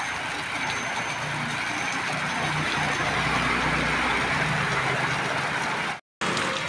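Motorcycles riding through shin-deep floodwater: small engines running steadily under the hiss of tyres throwing up spray. The sound drops out briefly about six seconds in.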